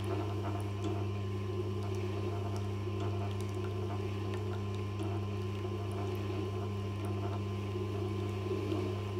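Tormek sharpening machine running with a steady low hum while a skew chisel's bevel is held against its leather honing wheel charged with honing paste, polishing the bevel.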